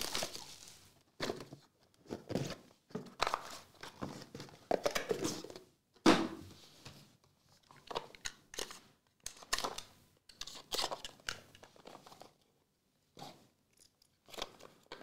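Packaging of a Noir trading-card hobby box being torn open and handled: irregular rustling and tearing strokes with short pauses, the loudest about six seconds in.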